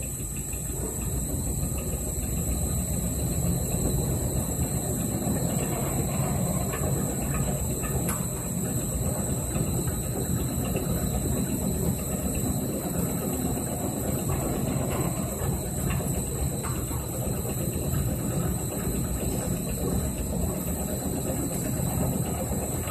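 Electric motor and gearbox of a horizontal spiral accumulator running its large ring-gear drive, the pinion meshing with the ring gear in a steady mechanical rumble, with a thin steady high whine above it.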